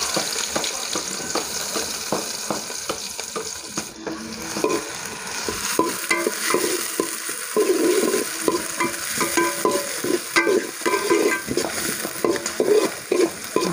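Onions sizzling as they fry in a pan, stirred with a spatula that scrapes the pan over and over, the scraping coming thick and fast from about four seconds in.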